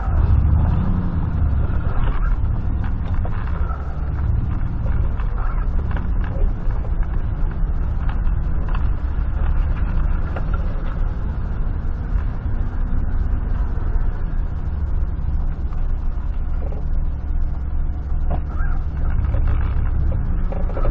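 A 1996 GMC pickup's V8 engine running as the truck drives slowly, a steady low rumble heard inside the cab with light clicks and rattles, recorded through a cheap dash cam's microphone. The engine note swells briefly about a second in.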